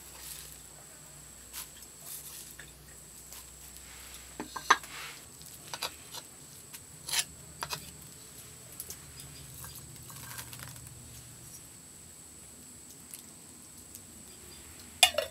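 Chopped ingredients being tipped and scraped from a small clay bowl into a glass mixing bowl: a soft patter with scattered sharp clicks and taps of bowl and spoon against the glass, the loudest cluster near the end.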